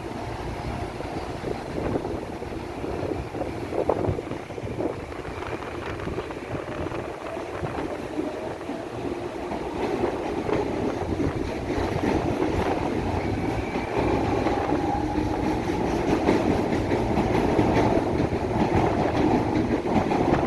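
Electric suburban train pulling away from a station, its traction motors growling as it gathers speed, with faint tones that rise in pitch and a slowly swelling level.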